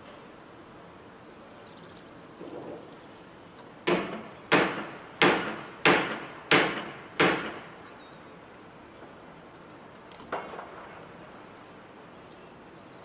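Six loud bangs in an even rhythm, about two-thirds of a second apart, each trailing off quickly, from work at the back of a parked van. A fainter knock follows a few seconds later.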